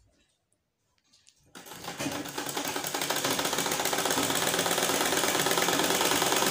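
Domestic sewing machine stitching a seam through cotton fabric. Faint cloth handling at first, then about a second and a half in the machine starts and runs steadily with a fast, even clatter.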